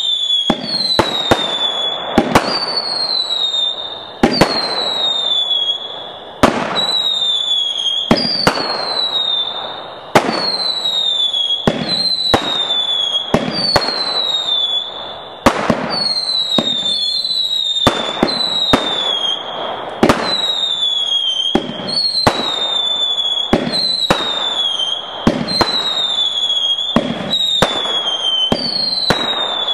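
Orion 'Jungle Cat' 200-gram repeater cake firing roughly one shot a second. Each shot is a sharp pop followed by a whistle that falls in pitch over about a second, over a steady hiss.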